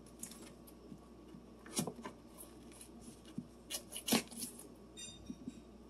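A knife slicing pats off a block of butter: a few light, sharp clicks and taps of the blade, the loudest about four seconds in, with faint handling noise between.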